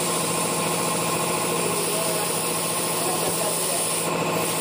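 Air-powered tyre-shop machinery running steadily with a fast, even pulsing chatter.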